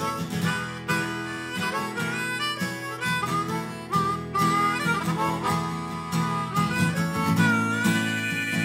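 Harmonica playing a melody line with held and sliding notes over a strummed acoustic guitar, an instrumental break between verses.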